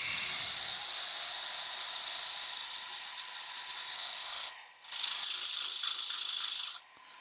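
A compressed-air blow gun hissing in two long blasts, the second starting about half a second after the first stops, both cutting off sharply.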